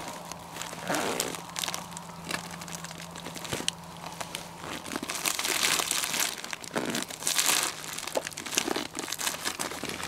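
Hands rummaging through a bag of gear: irregular crinkling and rustling with small clicks, strongest about five to eight seconds in.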